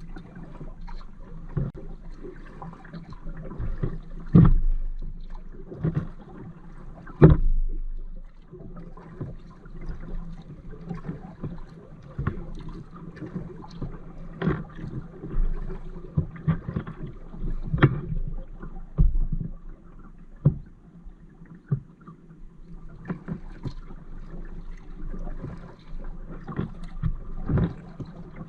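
Kayak being paddled: paddle strokes and water sloshing against the hull, with irregular knocks and thumps; the two loudest thumps come about four and seven seconds in.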